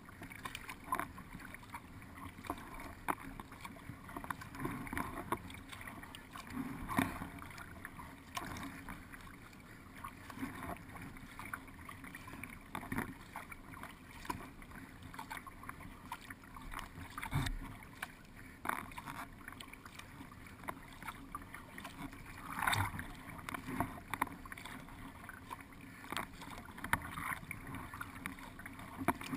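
Paddle strokes splashing and water washing along the hull of a paddled race boat on a creek. Irregular splashes and knocks come every second or two, with one louder splash about three quarters of the way through.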